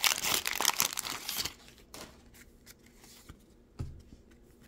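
Waxed-paper wrapper of a 1987 Donruss baseball card pack being torn open, crackling and crinkling for about a second and a half. Then faint taps and rustles of the cards being handled, with a soft thump near the end.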